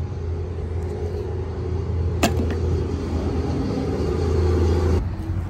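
A steady low engine hum, which stops sharply about five seconds in, with one sharp click a little after two seconds.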